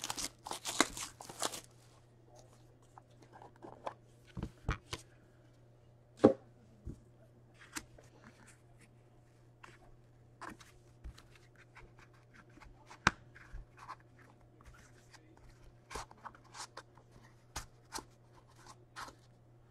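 Plastic wrap crinkling and tearing for about the first second and a half, then scattered light taps and clicks of cardboard and cards as a hockey card box is slid from its sleeve and its lid lifted.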